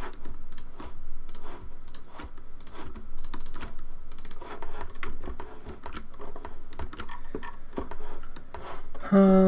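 Computer keyboard and mouse clicking irregularly as hotkeys and buttons are pressed one at a time. Near the end a voice gives a short, steady hum.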